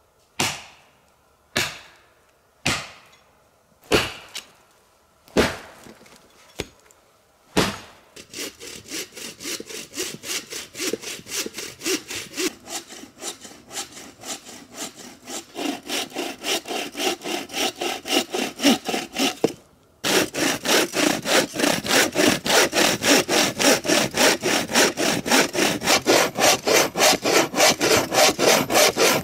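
About seven sharp chops into wood, roughly one a second. Then a hand saw cutting through a branch in steady back-and-forth rasping strokes, which break off briefly about twenty seconds in and return louder, at two to three strokes a second.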